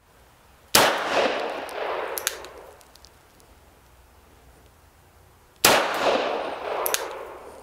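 Two loud shots from an M1895 Nagant revolver firing 7.62×38mmR rounds, about five seconds apart, each ringing and echoing off the room for about two seconds. A sharp click comes about a second and a half after each shot as the hammer is cocked for the next single-action shot.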